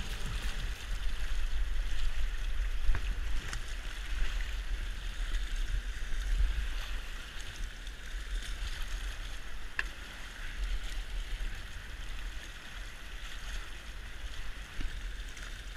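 Fast, flood-swollen river water rushing and splashing around a submerged log, with a low rumble on the microphone and a few sharp clicks.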